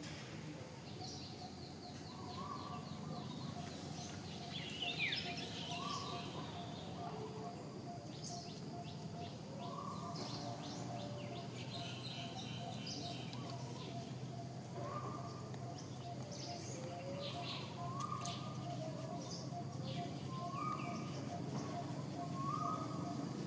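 Birds calling: a short call repeated every two seconds or so, with scattered higher chirps and trills over a steady low background hum.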